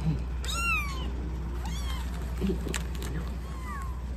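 Young kitten mewing in high-pitched, arching cries: a loud mew about half a second in, then two fainter ones near the middle and near the end.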